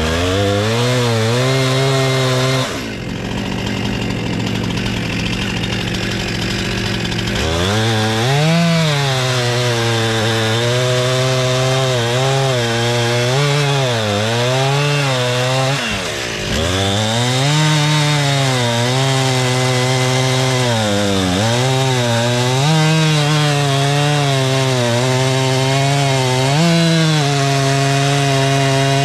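Stihl chainsaw bucking logs into firewood. It runs at high revs, eases off for a few seconds, then cuts through the wood with the engine note dipping under load and recovering again and again. The revs drop briefly about halfway through.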